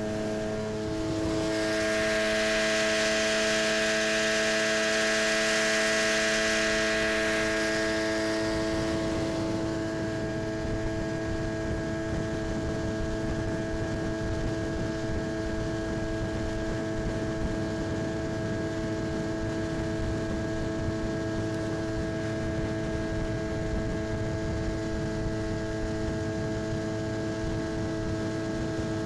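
1990 Mercury 25 hp outboard motor running steadily at cruising throttle, a constant hum with several fixed tones, pushing a small aluminium boat along. A loud rushing hiss rides over it for the first eight seconds or so, then fades.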